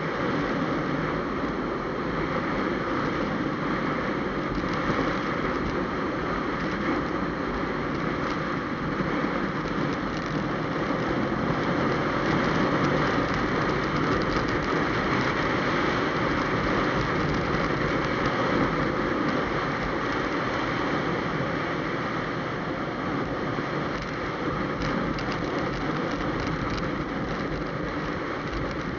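Steady wind rush and road noise from a motorcycle riding at highway speed, picked up by a camera mounted on the bike.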